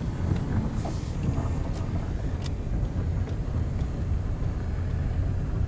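Car driving along, a steady low rumble of engine and tyres heard from inside the cabin, with a few faint ticks and a brief hiss about a second in.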